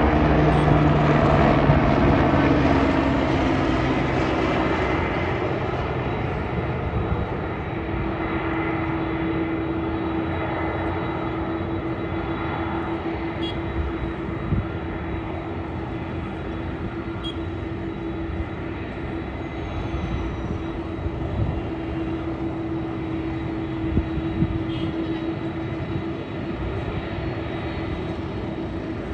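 Airplane engines passing close, loudest in the first few seconds with a falling pitch, then a steadier, quieter engine noise with one held tone as the aircraft moves on.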